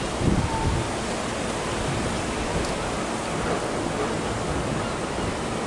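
Steady wind noise on the microphone, an even hiss, with a low buffeting gust about a third of a second in.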